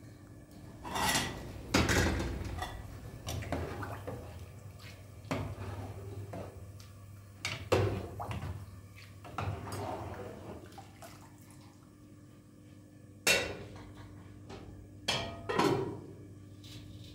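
Dishes and pots being handled, with several sharp clatters and knocks and some scraping in between, over a steady low hum.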